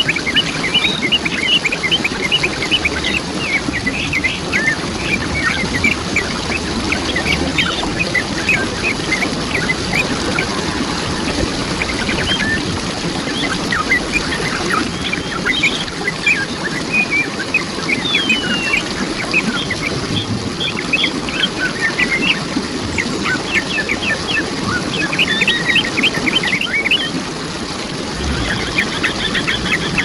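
Waterfall water running steadily, with birds chirping over it in quick runs of short, high notes and one falling whistle a little past the middle.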